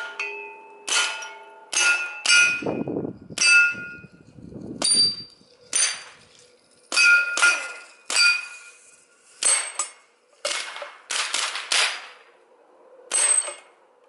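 Suppressed 9mm shots from a SIG MPX carbine with an Octane 9HD suppressor: about fifteen rounds at an irregular pace, some in quick pairs and triples. Most are followed by the clang and ring of a steel plate being hit.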